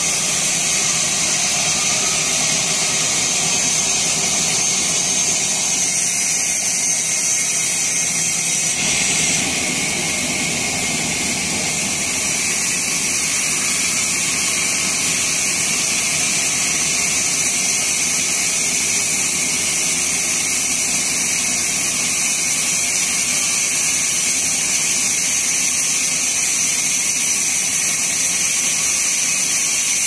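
Vertical bandsaw sawmill running, its blade cutting through a teak plank: a loud, steady high-pitched whine and hiss.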